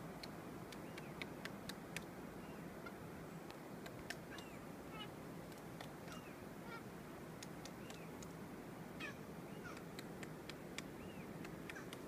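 Magellanic woodpecker tapping at a branch in irregular single knocks, with short calls scattered among them, each rising and falling in pitch, over a steady background hiss.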